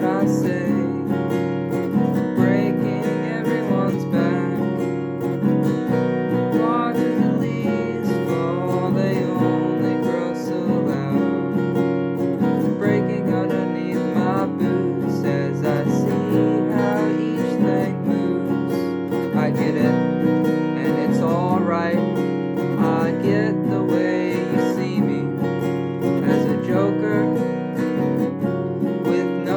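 Acoustic guitar strumming chords in a steady, continuous song accompaniment.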